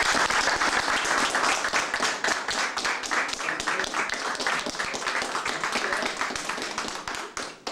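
A small crowd applauding, many hands clapping at once, loudest at the start and dying away near the end.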